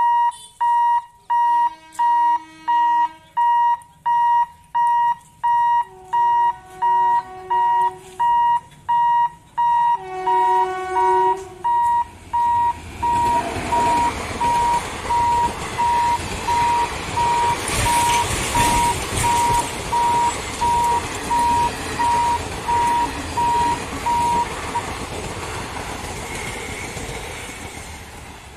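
Level-crossing warning buzzer beeping steadily, about one and a half beeps a second, until it stops near the end. A horn sounds three times in the first dozen seconds. From about halfway through, an electric locomotive and its express coaches rumble past over the crossing, loudest a few seconds later and then fading away.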